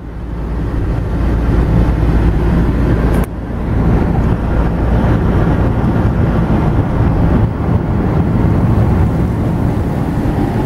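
Steady road and engine noise heard from inside a moving car's cabin at motorway speed, with a sudden short break about three seconds in.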